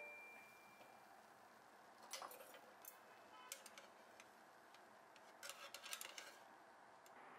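Faint, light metal clicks and taps in a few short clusters, from a fork and the hinged aluminium stovetop waffle pan being handled as the waffle is freed; near silence between them.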